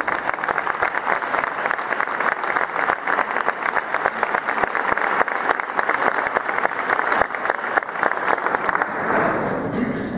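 Audience applauding: a dense, steady clatter of many hands clapping that thins out near the end.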